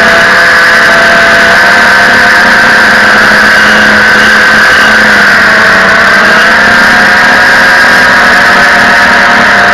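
Electric motors and propellers of an FPV aircraft heard through its onboard camera: a loud, steady whine with several tones. Its pitch dips slightly around the middle and then recovers.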